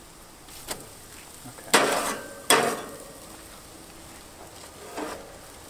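Slotted metal spatula scraping and clacking on tin foil under grilling bluefish fillets, two sharp scrapes under a second apart, with a quiet steady sizzle from the fish on the hot grill.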